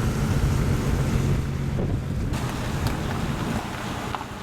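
A car's engine hum and road noise, with wind rushing over the microphone, dropping a little near the end.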